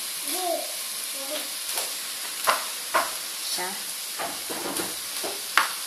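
Rice frying in a stainless steel pot with a steady sizzle, broken by a few sharp clicks and knocks, the loudest near the end.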